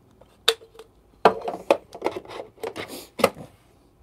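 Hard plastic parts of a Solis Scala Plus coffee grinder being handled, fitted and set down: a scatter of light clicks and knocks, busiest between about one and two seconds in.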